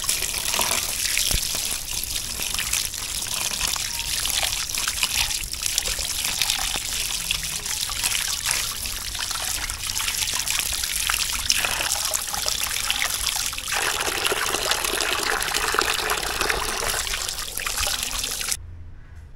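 A stream of running water splashes over hands and squid pieces into a plastic tray of water as the squid is rinsed by hand. The water is steady and cuts off suddenly shortly before the end.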